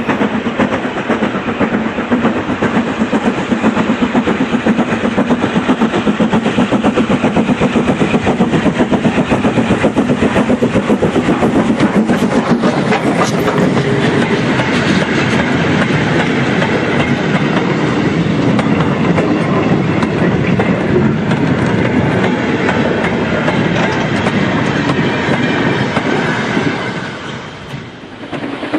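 Model train running on the track, its wheels making a rapid, steady clickety-clack over the rail joints, with a short dip in level near the end.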